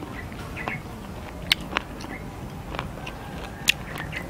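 Cooked crickets being broken apart by hand, giving about five sharp, dry crackles spread over a few seconds, the loudest about a second and a half in and near the end.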